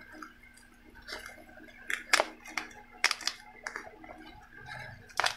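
Black plastic courier pouch crinkling and crackling as hands squeeze and pull at it, trying to get it open, in scattered sharp crackles.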